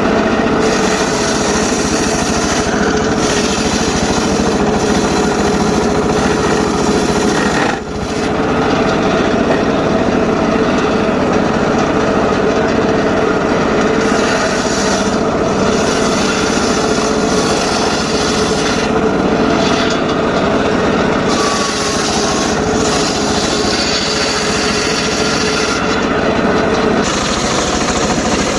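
Homemade circular saw running continuously and cutting short pieces of teak wood: a steady blade hum with a rasping cutting noise that rises and falls as the wood goes through. The sound briefly drops about eight seconds in.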